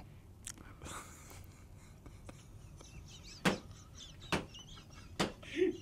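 Quiet, mostly silent laughter in a small room: three sharp clicks about a second apart, then a short low voiced chuckle near the end.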